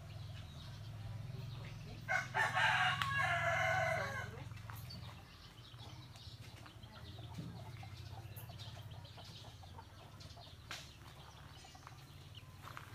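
A rooster crowing once, about two seconds in: a few short opening notes, then a held call that drops in pitch as it ends.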